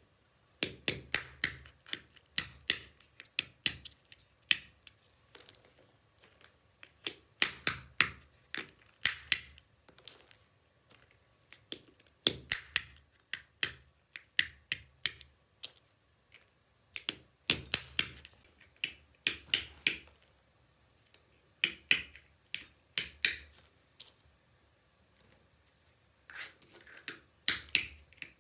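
Walnuts being cracked by striking them with a hand-held stone on a metal cylinder: sharp knocks and cracking shells in about six bursts of several quick blows each, with short pauses between.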